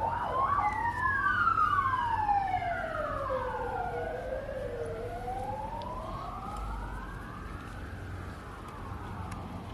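Emergency-vehicle sirens wailing, at least two rising and falling out of step with each other, fading toward the end.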